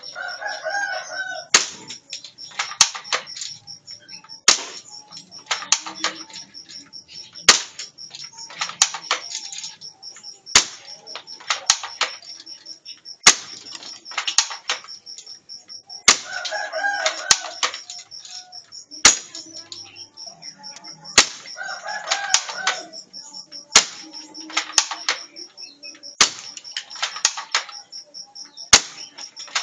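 A spring-powered MP5 airsoft gun fired shot after shot, one sharp crack about every three seconds, each followed by a quick run of clicks as it is cocked by hand for the next shot. A bird calls briefly three times.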